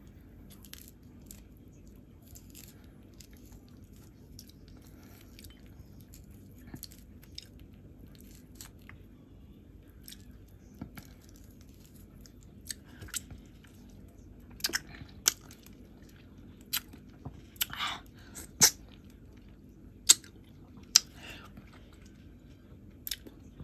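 An orange being peeled by hand close to the microphone: the peel tears and snaps off the fruit in scattered sharp crackles, sparse at first and more frequent and louder in the second half, over a faint steady low hum.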